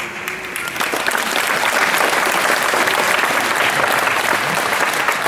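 A congregation applauding: dense, steady clapping that swells about half a second in.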